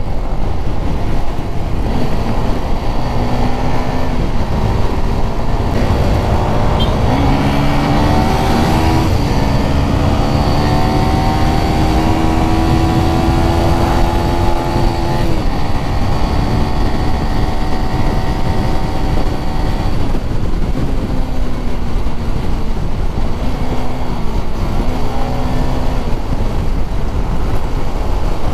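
Motorcycle engine running on the move under a heavy, steady rumble. Its pitch climbs about eight seconds in, holds higher for several seconds, and drops back about fifteen seconds in.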